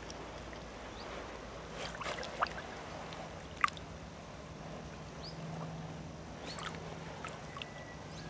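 Lake water sloshing and splashing around a carp being released from a wet sling by hand, with a few short sharp splashes, the sharpest about three and a half seconds in.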